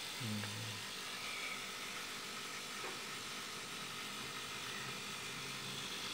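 Quiet room tone: a faint, steady background hiss, with a brief low hum about half a second in.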